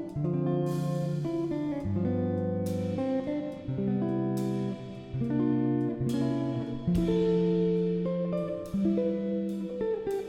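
Background music led by a plucked guitar, chords changing every second or two.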